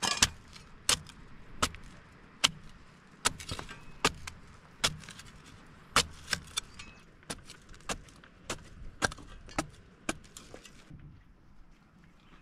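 A series of sharp knocks, roughly one or two a second at a fairly even pace, that stop shortly before the end.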